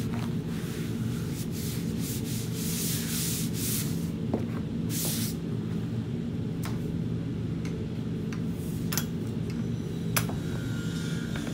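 Hands rubbing and smoothing EPDM rubber roofing membrane down onto contact adhesive, a run of swishing strokes over the first five seconds, with a few sharp knocks. Near the end a roller is run over the membrane. A steady low hum sounds throughout.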